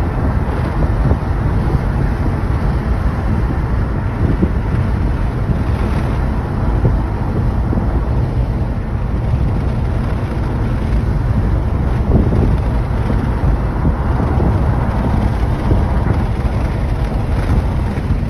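Steady low rumble with wind noise buffeting the microphone, even in level throughout, with no distinct events.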